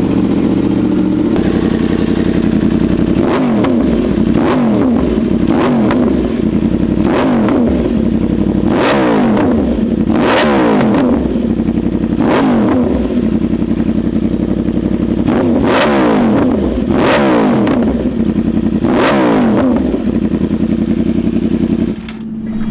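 Yamaha R1 crossplane inline-four running through a full SC Project CR-T exhaust: it idles briefly, then is given about ten quick throttle blips, each rising and falling, and the sound cuts off suddenly near the end. The exhaust is really loud.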